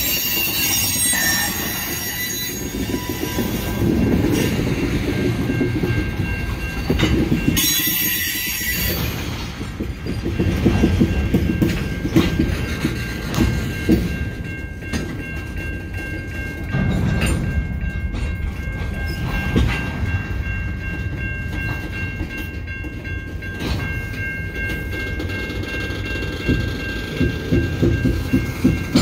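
Freight train's steel tank cars rolling slowly past, their wheels squealing thinly against the rails. Quick, regular wheel clacks over the rail joints come near the end.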